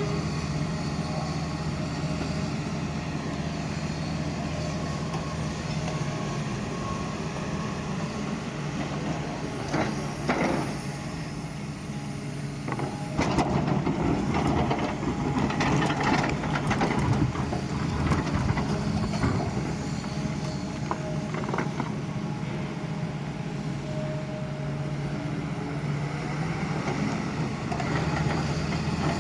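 Doosan excavator's diesel engine running steadily while it digs. About halfway through it grows louder, with a run of clunks and scraping from the working bucket.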